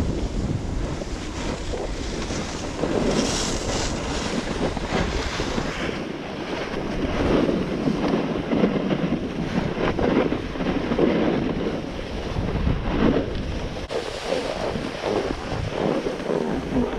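Wind buffeting the microphone and skis scraping over packed snow during a downhill run, swelling in repeated surges every second or two.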